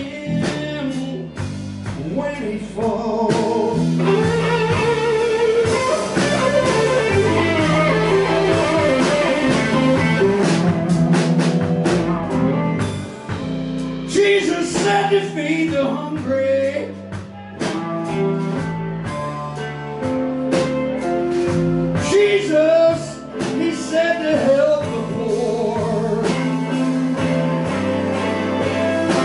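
Live blues-rock band playing, with electric guitar over bass and drums.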